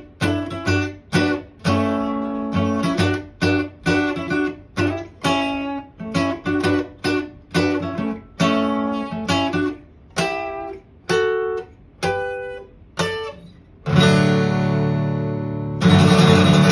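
Steel-string acoustic guitar playing rhythmic chords about twice a second, slowing and thinning about ten seconds in. Near the end, two loud full strummed chords are left to ring out, closing the piece.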